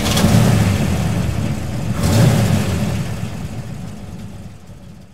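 A vehicle engine revving, surging twice and then fading out.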